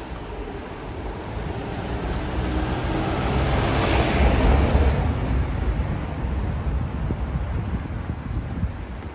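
A white box van driving past over cobblestones: its engine and tyre rumble grow louder, peak about four to five seconds in as it passes, then fade.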